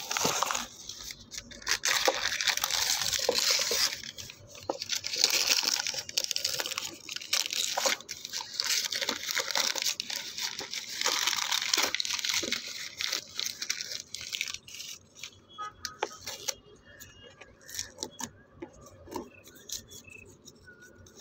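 Newspaper gift wrapping being torn and crumpled by hand: dense paper rustling and tearing, easing off to occasional soft crinkles and taps in the last several seconds.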